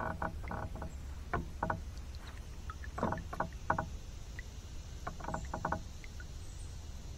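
Light clicks and knocks of a fishing rod and reel being handled in a plastic kayak, coming in four short clusters of quick taps over a low steady rumble.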